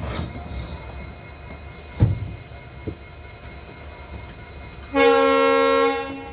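WDP4B diesel locomotive's horn sounding one loud chord of several notes for about a second near the end, over the low rumble of the moving train. A few dull knocks come earlier, the loudest about two seconds in.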